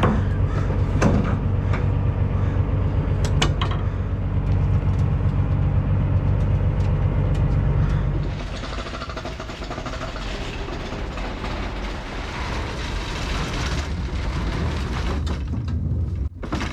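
An engine running steadily with a low hum, with a few sharp clicks. About eight seconds in the hum stops and a steady hiss is left.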